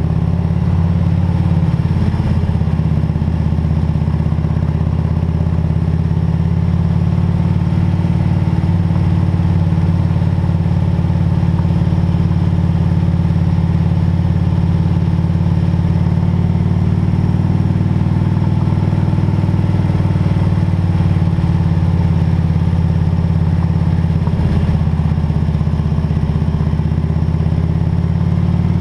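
Harley-Davidson Road King's V-twin engine running steadily under way, its pitch and loudness holding even.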